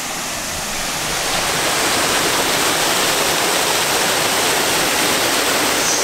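Water spilling over a small weir on a river: a steady rushing that grows louder about a second in and then holds.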